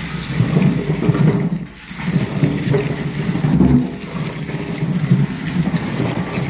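A heap of tulip and daylily bulbs being stirred and mixed by hand, a continuous rustling and knocking that swells and dips every couple of seconds.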